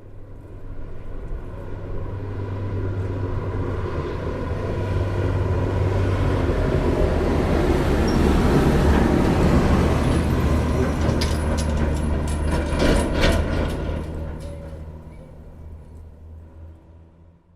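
A heavy truck's engine grows louder over several seconds, is loudest about halfway, then fades away, like a truck driving past. A run of sharp clattering knocks sounds about two-thirds of the way through, while it is near its loudest.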